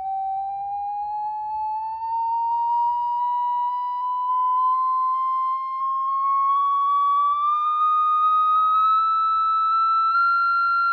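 Sine-wave test tone from a smartphone frequency-generator app, played through the phone's speaker, rising slowly and evenly in pitch as the frequency slider is dragged, from about 770 Hz to about 1,330 Hz.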